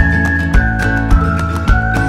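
Background music with a steady beat, a little under two beats a second, under a held melody line.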